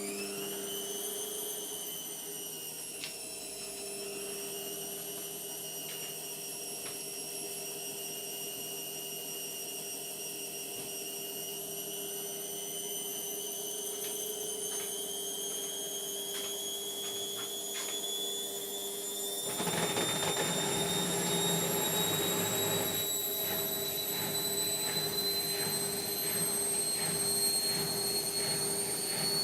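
Indesit washing machine spinning: the motor's whine climbs slowly in pitch as the drum speeds up. About two-thirds of the way through, a louder rushing, rattling noise joins the whine.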